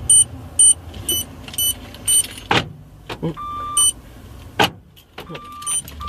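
A short, high electronic beep repeating about twice a second, five times, then breaking off. Two loud whooshes and a held mid-pitched tone follow, with a few more of the same beeps near the end.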